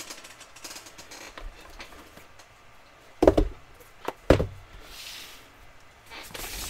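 Sealed cardboard trading-card boxes being set down and stacked on a table: two sharp knocks about a second apart, a little past halfway, with faint handling noise around them.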